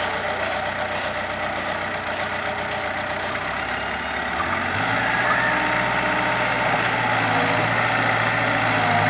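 Kobelco SK03 excavator's diesel engine running steadily. About halfway through, its pitch steps up and it gets a little louder as the engine speeds up while the boom and arm are moved.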